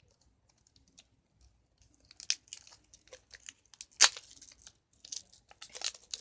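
Plastic wrapper crinkling and tearing as it is pulled off a slime container, in short irregular crackles that start about two seconds in, the loudest one about four seconds in.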